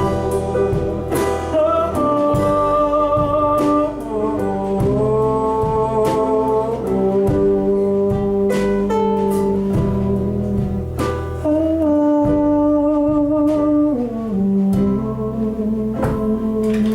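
Live band playing, with held chords that step to new notes every second or two over guitar and drum hits.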